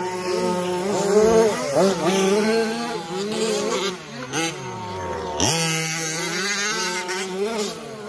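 Several radio-controlled 4WD trucks racing on dirt, their motors buzzing and whining, the pitch rising and falling as they speed up and slow down. Around the middle, one motor's pitch falls steadily as it slows, then jumps back up as it accelerates again.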